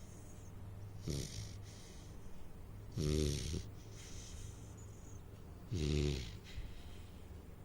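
Saint Bernard puppy snoring in its sleep: a faint snore about a second in, then two loud snores about three seconds apart, each followed by a softer breath out.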